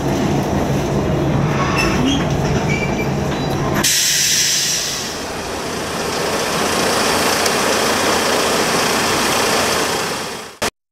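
Diesel railcar engine idling at a standstill, first as a steady low hum from inside the cab, then, about four seconds in, a noisier, hissier sound of the same stopped railcar from outside on the platform. The sound cuts off abruptly near the end.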